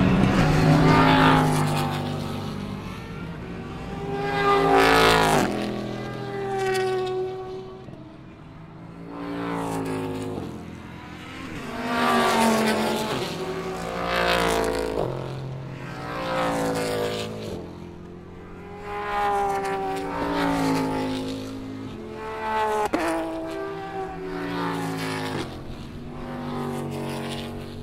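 Grand Am race cars passing one after another through a corner, each engine rising in pitch as the car accelerates, with gear changes breaking the note. The sound swells and fades as each car goes by.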